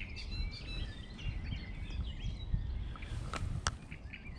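Several songbirds chirping and singing over a low rumbling noise, with two short sharp clicks near the end, a fraction of a second apart.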